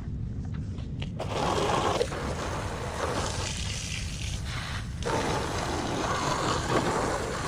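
Homemade washer built from a refrigerator compressor, running with a steady low hum while a jet of water hisses out about a second in, easing off briefly twice before spraying again.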